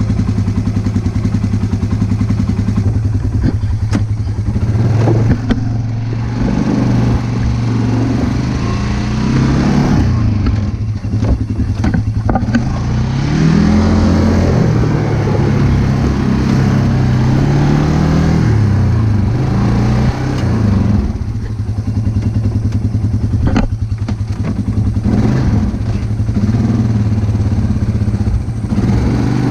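A vehicle's engine running steadily, its speed rising and falling at times, with scattered clattering knocks.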